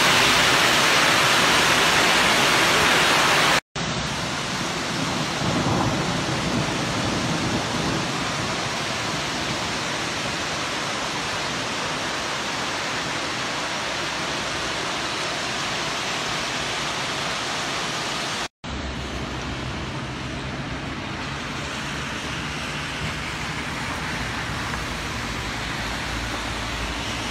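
Hailstorm downpour of hail and rain, a dense steady hiss that is loudest in the first few seconds. After a cut it continues as lighter steady rain, and after a second cut it is quieter still, with a low rumble beneath.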